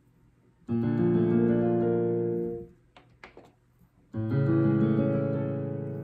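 Roland FP-90X digital piano in its piano voice, playing two short chordal phrases of about two seconds each, with a pause between them. A few faint clicks of the keys are heard in the gaps.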